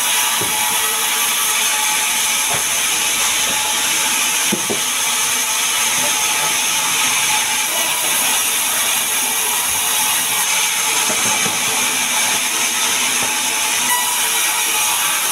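Large vertical band saw ripping a sengon log lengthwise: a steady hiss of the blade running through the wood, with a few soft knocks.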